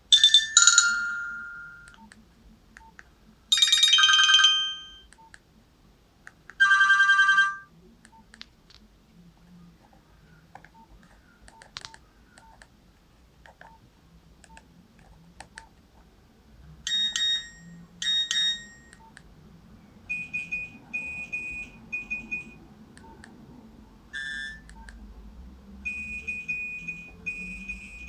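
Nokia 105 (2013) mobile phone playing its built-in tones one after another. First come three short melodic chimes in the first eight seconds. After a quiet gap there are two short blips, then runs of rapid high beeps toward the end.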